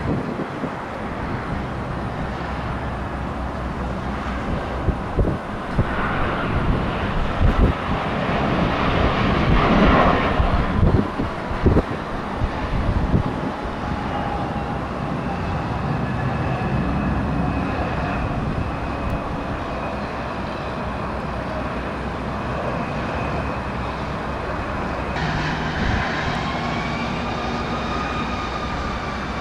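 Jet aircraft engines: a steady rush with a turbine whine that glides in pitch through the second half.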